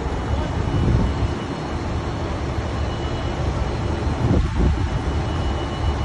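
Fire engine's diesel engine running close by: a steady low rumble.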